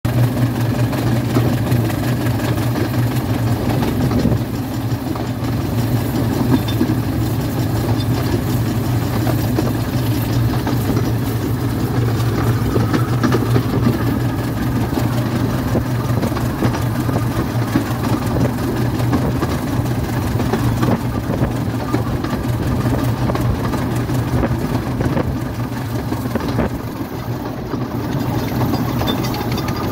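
Heywood 0-4-0 minimum-gauge steam locomotive on the move, heard from its own footplate: a continuous, loud mix of exhaust and wheels running on the rails. It is working under load on the climb to a summit, with a slight easing in level a few seconds before the end.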